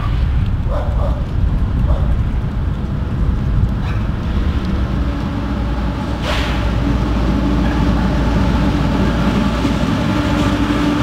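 Approaching CSX coal train: the diesel engines of its GE locomotives, an ES44AH leading, make a low rumble, and a steady engine drone comes in about halfway and grows as the train nears. A dog barks a few times near the start, and there is one sharp knock a little after six seconds.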